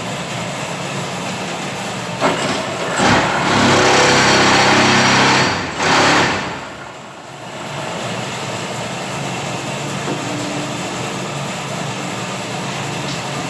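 Hydraulic concrete-block and paving press running with a steady motor hum. From about two seconds in, a loud surge of machine noise lasts about four seconds, with a brief break near the end, as the machine works through a cycle.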